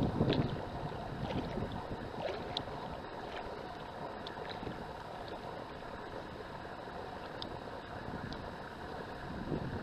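Steady rushing of wind on the microphone and moving water from a boat on a river, with a few faint clicks.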